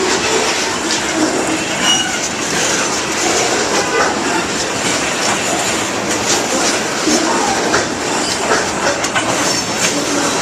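Freight cars of an Iowa Interstate Railroad train rolling past at close range, their wheels clacking steadily over rail joints. Brief high wheel squeals come and go.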